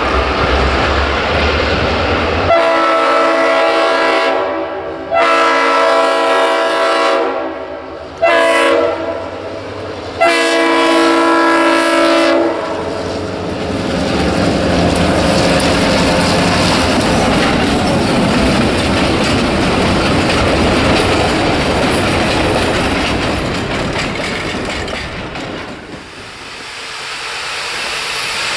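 Shay geared steam locomotive's steam whistle blowing four blasts, long, long, short, long, the pattern of a grade-crossing signal. Its train then rolls past with a steady rumble and clatter of wheels on the rails, fading near the end.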